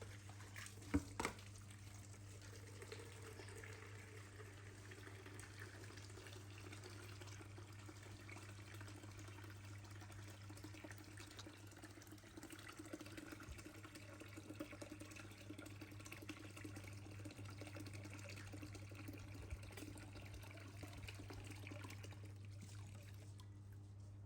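Faint, steady running water, like a tap running or water trickling into a basin, over a low steady hum. A couple of small knocks about a second in.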